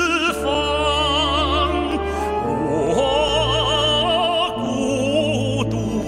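A male singer sings a slow Chinese ballad with wide vibrato, backed by an orchestra with sustained low notes.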